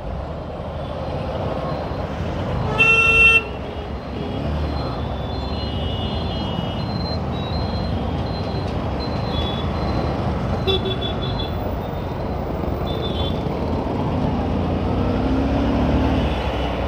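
Bajaj CT 125X motorcycle riding in slow, crowded traffic: steady engine and road noise. One loud horn blast sounds briefly about three seconds in, with a few fainter horn toots from the traffic later on.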